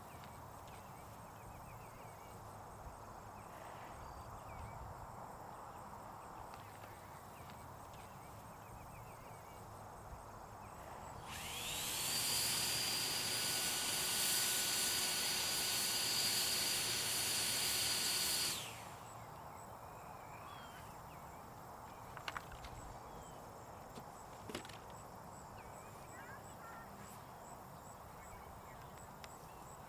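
A leaf blower spins up about eleven seconds in, runs for some seven seconds as a loud rushing blast of air with a steady high whine on top, then stops. Faint birdsong and a couple of small clicks sit in the quieter stretches around it.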